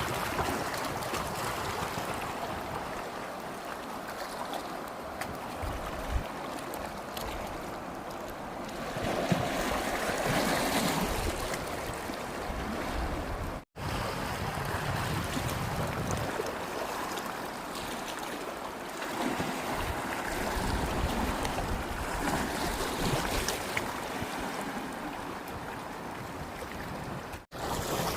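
Sea waves breaking and washing up the shore, the surf swelling and ebbing in slow surges, with wind buffeting the microphone at times. The sound drops out briefly twice, near the middle and near the end.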